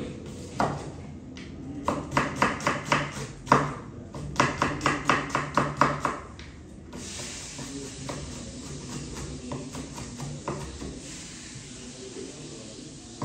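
Broad-bladed kitchen knife chopping an onion on a wooden cutting board: quick runs of sharp knocks, about four or five a second. After about seven seconds the knocks give way to a steady hiss with a few light taps.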